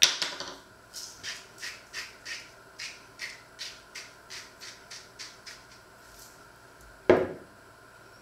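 A sharp clack, then a hand spice mill being twisted in a run of short grinding strokes, about three a second, and near the end a knock as it is set down on the wooden counter.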